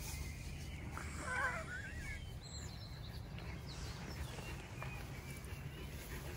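Quiet outdoor night ambience: a steady low background hum with faint bird chirps scattered through it, and a brief wavering call about a second in.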